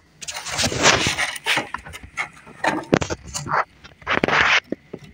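Clear plastic containers being handled: an irregular run of scrapes, rubs and clicks, with the loudest scrape about four seconds in.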